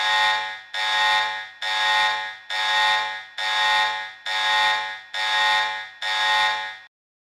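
Harsh buzzing alarm tone of a mock emergency alert, sounding in eight even blasts a little under one a second, each about three-quarters of a second long. It stops abruptly near the end.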